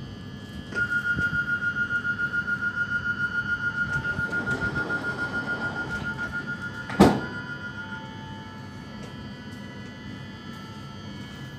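Door-closing warning beeps of a Bombardier Régio 2N (Omneo Premium) double-deck regional train: a rapid high beep about five or six times a second, starting about a second in and slowly fading, stopping near the end. A loud thunk comes near the end as a door shuts.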